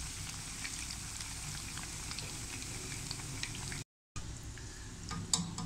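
Battered eggplant, green chilli and vegetable pakoras deep-frying in hot oil: a steady sizzle with scattered crackles. The sound cuts out briefly about four seconds in, then the sizzle resumes.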